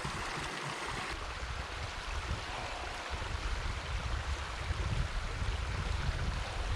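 Steady rush of a rocky mountain stream flowing, with an uneven low rumble beneath it.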